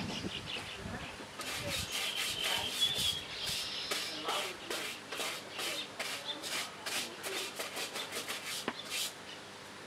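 Repeated rough scraping or rubbing strokes, irregular, about two or three a second, starting about a second and a half in.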